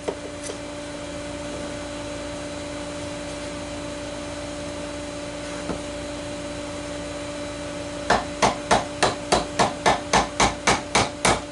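A steady hum for about eight seconds, then a fast, even run of hammer blows, about four a second. The blows are driving the glued wooden dowel joint of a bench together.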